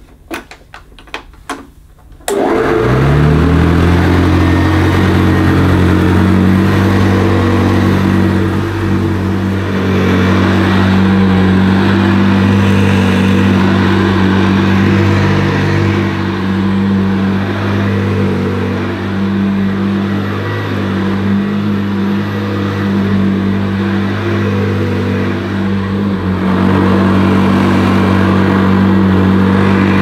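A few clicks, then a 1970s Hoover Senior 6525C upright vacuum cleaner switches on about two seconds in. Its motor winds up quickly to a loud, steady hum as the beater-bar brush works the carpet. The sound dips slightly for a few seconds past the middle, then comes back up.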